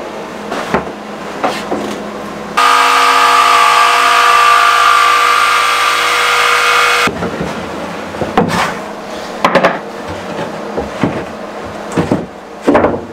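Electric jigsaw cutting plywood, a steady loud whine that starts a few seconds in and stops abruptly after about four and a half seconds. Scattered knocks and taps come before and after it as the plywood floor panel is handled and set onto the floor joists.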